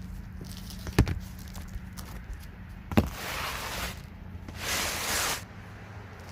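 Two sharp hammer blows about two seconds apart, knocking old nails down into the garage roof, the second followed by two longer rustling scrapes.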